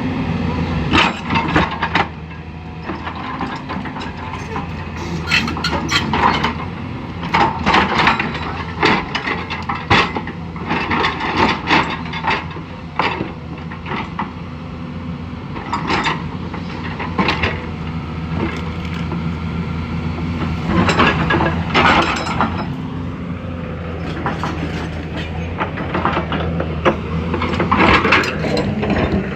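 Excavator's diesel engine running steadily while the machine works, with many irregular sharp cracks and knocks in clusters of material being broken or struck.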